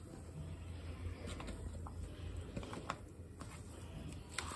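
Hand kneading a soft vegetable cutlet mash of boiled potato, crushed corn and soaked poha in a steel plate: faint, soft sounds of the mash being pressed and turned, with a few light ticks.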